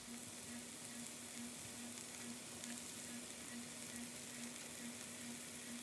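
White button mushrooms quietly and steadily sizzling as they fry and cook down in a pan of butter and meat juices, with a faint steady hum underneath.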